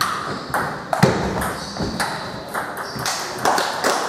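Table tennis rally: the ball clicking off rubber-faced paddles and bouncing on the table, a string of sharp pings about half a second apart.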